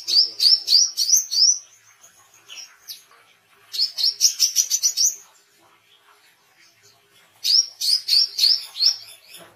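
Male brown-throated sunbird singing: three bursts of high, rapidly repeated chirping notes, each burst a second or so long, a couple of seconds apart, with a few faint single notes between them.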